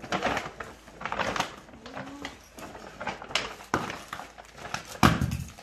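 A paper gift bag being opened and rummaged through, rustling and crinkling in short irregular bursts, with a louder rustle or knock about five seconds in.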